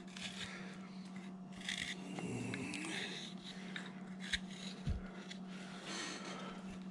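Carving knife paring slices off a wooden figure: faint scraping cuts, with two small knocks near the middle.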